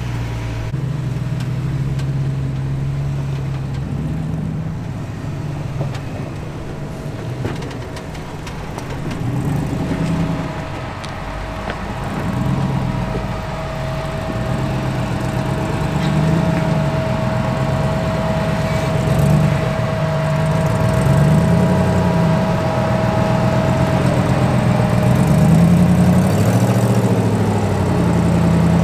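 Jeep engine running, its pitch repeatedly rising and falling as the throttle is worked. A thin steady whine joins in through the middle.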